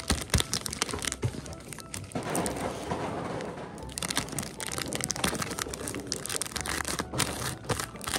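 Clear plastic tubes and bags crinkling and small plastic pieces clicking against each other as they are packed by hand: a fast, dense run of clicks and rustles.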